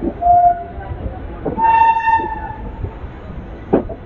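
Train running with a steady low rumble while horns sound: a short toot about a third of a second in, then a horn blast of about a second starting about a second and a half in. A sharp knock comes near the end.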